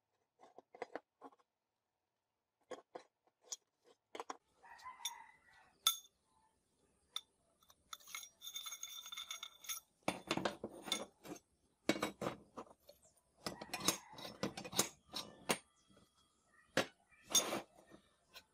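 Steel pieces handled on a workbench: a metal channel and a square steel tube set down and moved, giving scattered clinks and knocks, with a short metallic ringing partway through and thicker clusters of knocks in the second half.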